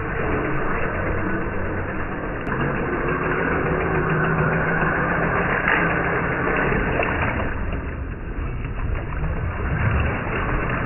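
Axial SCX10 III RC crawler's 2300kv brushless electric motor and drivetrain running steadily as it drives through shallow stream water.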